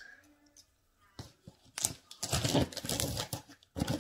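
Cardboard shipping box being handled and opened: a few light clicks, then a run of quick scraping and rustling of cardboard.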